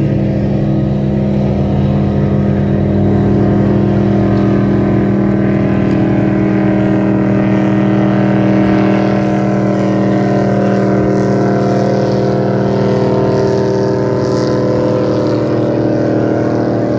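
Airboat engine idling, a constant drone that holds steady.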